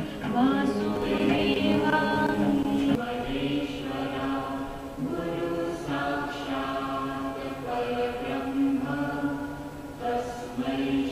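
Background music of voices chanting in slow, long-held notes, like a choir singing a mantra.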